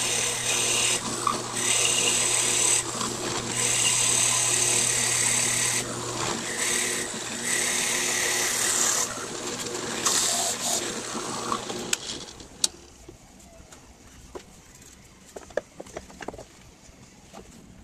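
Midi wood lathe running with a steady motor hum while a tool works the spinning hardwood, its hiss coming and going unevenly. About twelve seconds in the lathe is switched off, leaving only faint scattered clicks.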